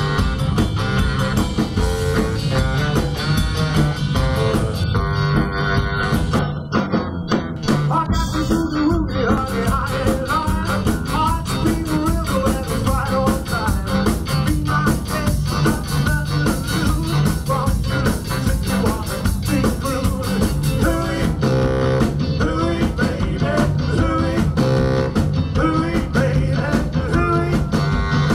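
Live rock-and-roll band playing, with drums, electric guitar and a bass saxophone, to a steady beat.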